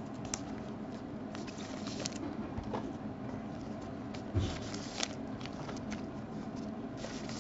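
Faint clicks, taps and crinkles of shrink-wrapped trading card boxes and plastic wrapping being handled on a table, with a low thump about four and a half seconds in.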